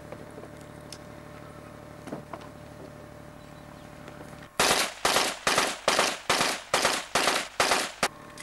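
A string of about nine rapid single shots from a submachine gun, evenly spaced at a little under three a second, starting about halfway through.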